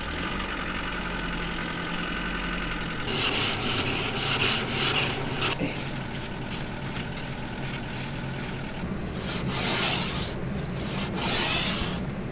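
A steady low engine hum, then from about three seconds in a loud, uneven rubbing and rustling noise that swells and fades over it.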